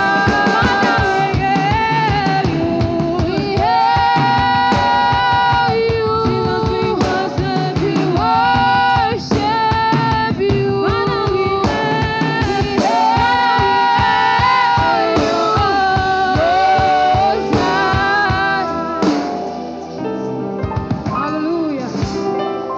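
Gospel worship song with singing over a band with drums, in a steady beat; the band thins out and gets quieter near the end.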